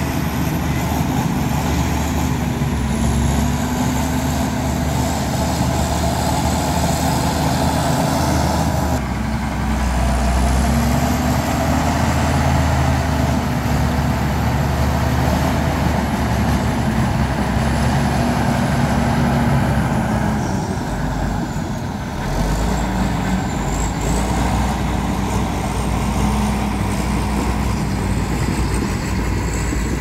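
Heavy diesel engines of earthmoving machinery running, their pitch slowly rising and falling. The sound shifts abruptly about nine and again about twenty-two seconds in.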